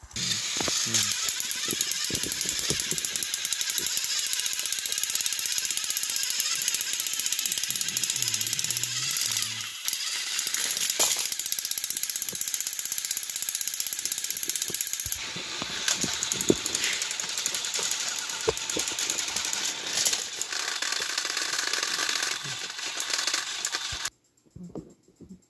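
Battery-powered Thomas & Friends toy engines running on plastic track, their small motors and gears making a steady buzzing rattle. The sound changes abruptly about halfway through and cuts off suddenly near the end.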